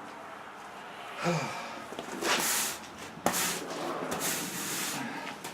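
Several scraping, brushing strokes of grit and coarse sand being swept across a rough concrete garage floor, with one sharp knock a little past three seconds in.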